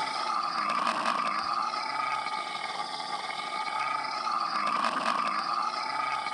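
Stomach growling: a continuous rumbling gurgle with a steady droning pitch, swelling about a second in and again about five seconds in.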